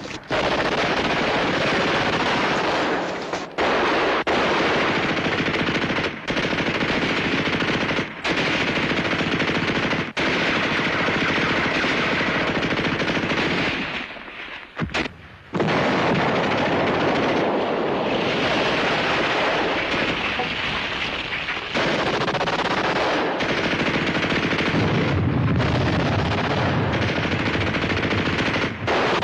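Battle gunfire: long, nearly continuous bursts of machine-gun and rifle fire, with a few short breaks and a lull of about a second and a half roughly halfway through. A deeper rumble joins the fire over the last few seconds.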